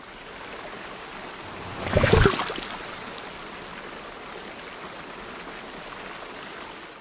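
Steady rush of flowing stream water, with a louder, brief burst of sound about two seconds in.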